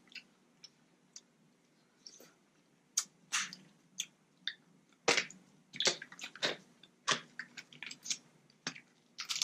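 Close-up eating of seafood-boil crab: irregular sharp cracks and snaps of shell being broken open, with wet sucking and chewing sounds in between.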